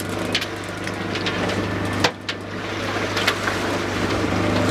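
Boat engine running steadily with a low hum, with scattered knocks and clatter on the deck, one sharp knock about two seconds in.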